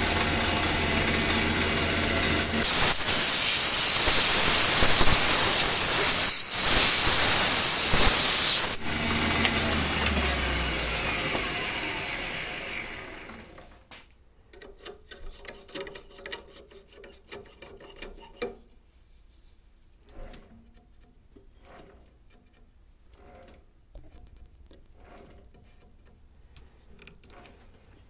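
Power tool running with a steady high-pitched hiss, louder from about two to nine seconds in. It then winds down in falling pitch and stops about fourteen seconds in, leaving only faint scattered clicks and rubbing from hand work on the cue.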